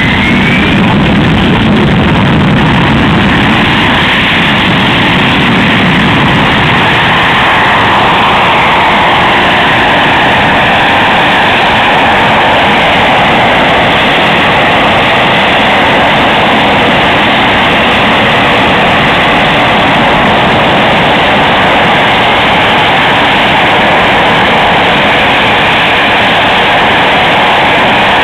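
Harrier jump jet's Rolls-Royce Pegasus turbofan running at high power through a vertical takeoff and hover: a loud, steady jet rush with a whine that slowly drifts down and up in pitch.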